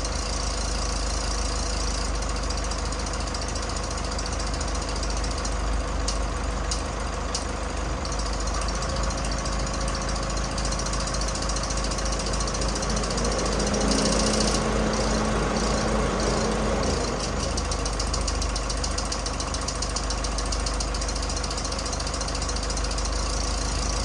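Toyota Hiace's engine idling while the relays of an 8-channel LED flasher module click rapidly as they switch the grille lights in a chase pattern; the relay clicking is noisy. A louder hum swells and fades about midway.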